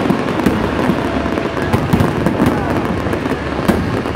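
Aerial fireworks going off in quick succession: a dense, unbroken crackle of pops and bangs over a low rumble, with a sharper bang about three and a half seconds in.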